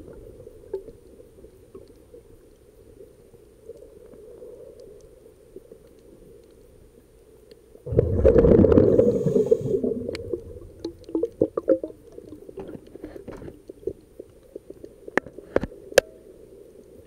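Underwater scuba bubbles: a loud gurgling rush of exhaled air bubbles about halfway through, with quieter muffled water noise before it and scattered short clicks and bubble pops after.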